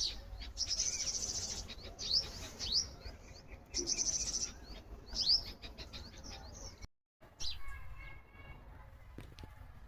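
Small songbirds chirping: rapid, high, downward-sweeping chirps mixed with a couple of short buzzy trills. After a brief break about seven seconds in, the chirps become softer and lower, over a low steady rumble.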